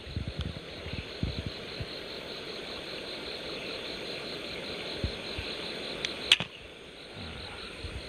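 A rubber-powered speargun fired once underwater about six seconds in, a single sharp snap, over a steady hiss with small clicks and knocks.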